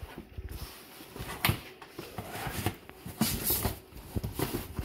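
Irregular knocks, taps and rustles of handling, with a few sharper knocks about a second and a half in and again past three seconds.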